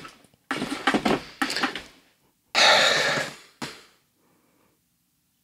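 A man's breathy, wordless thinking noises, drawn-out exhales or sighs, the loudest about two and a half seconds in.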